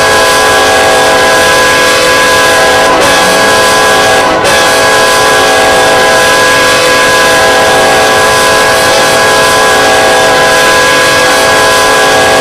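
Diesel locomotive's multi-chime air horn blowing a long, loud, steady chord, briefly let go twice: about three seconds in, and again a second and a half later.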